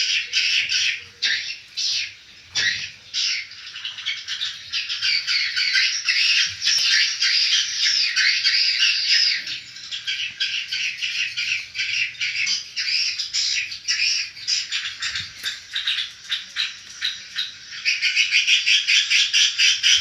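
Swiftlets chirping and clicking without pause, a dense twittering mass with rapid clicks, settling into an even clicking rhythm of about five a second near the end.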